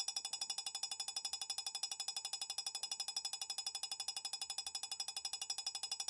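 Strobe light flashing at high speed: a rapid, even train of clicks, about ten a second, each with a high electronic ringing buzz.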